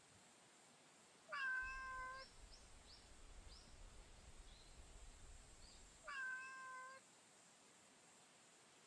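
A street cat meowing twice, two level calls each about a second long, about five seconds apart.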